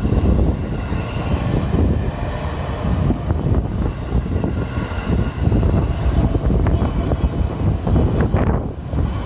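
A JR Ome Line train passing over the level crossing, a steady rumble with a faint high whine through the middle, while wind buffets the microphone.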